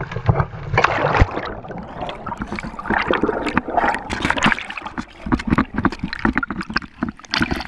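Water splashing and churning as a kayak capsizes and its paddler goes into the creek, then bubbling and gurgling heard through a camera submerged under the water.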